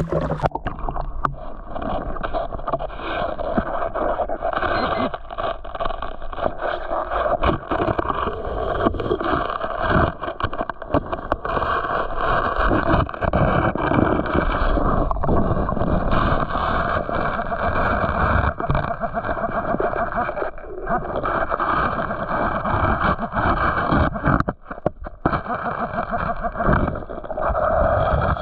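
Water churning and gurgling right at the microphone, with many small knocks and scrapes running through it.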